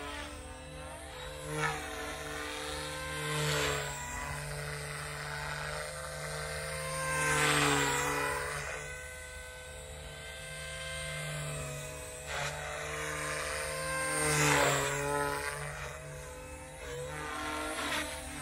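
Lynx Oxy 2 micro RC helicopter flying: the electric motor whine and rotor buzz run steadily and swell louder several times as it manoeuvres, with the pitch briefly dipping and recovering at the loudest swells.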